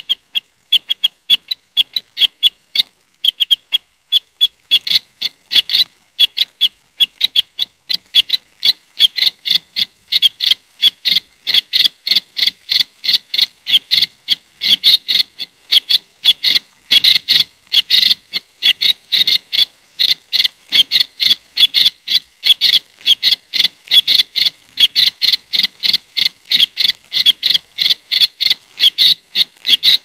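A sparrow chirping over and over: short, high chirps at about three a second, sparser at first and coming thicker and louder about four seconds in.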